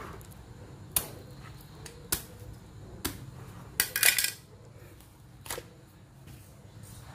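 Sharp clicks and knocks of a knife and durian husk pieces being handled and set down on a tiled floor: single strikes about a second apart, with a louder clatter of several knocks about four seconds in.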